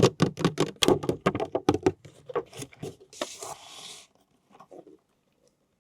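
Handling of toy packaging: a quick run of sharp taps and clicks, about six a second for two seconds, then scattered taps, a short rasp like tearing about three seconds in, and a few faint taps near the end.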